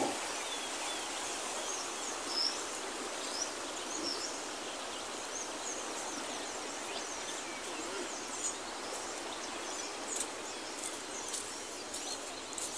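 Steady rushing of flowing river water, with faint, scattered high bird chirps over it.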